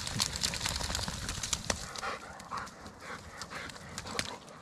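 A wet Malinois–German Shepherd cross shaking water out of her coat: a dense, quick flapping rattle in the first second or two. Then scattered clicks and panting as she moves off.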